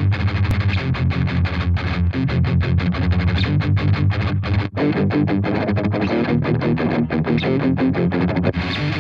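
High-gain distorted electric guitar played through the Brainworx Mega Dual plugin, a Mesa Boogie Dual Rectifier amp simulation, with no other instruments. It plays a fast, choppy metal riff of short chugging notes, with a brief break a little after the midpoint.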